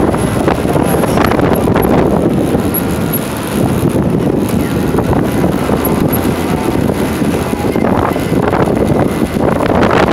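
Motorcycle riding along a road: a steady rush of wind on the microphone over engine and road noise, with a few brief swells near the start and again near the end.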